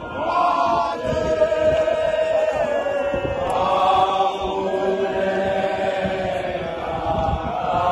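A large group of men singing a Zion Christian Church hymn together, in long held notes.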